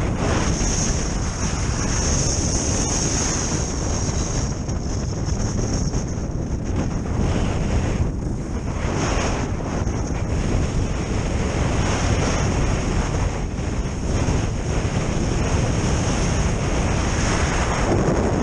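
Wind buffeting a body-worn camera's microphone during kite-skiing, a constant low rumble, over the hiss of skis sliding across packed snow that swells every few seconds.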